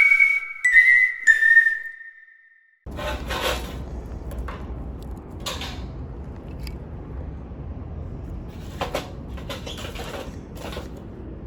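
A short whistle-like tone that steps and glides in pitch, ending about two seconds in. After a brief silence, a low steady background follows with a few scattered sharp clicks or knocks.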